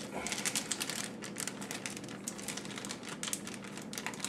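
Plastic zip-top freezer bag crinkling, with its zipper track clicking as it is pressed shut along the top: a dense run of small crackles and clicks.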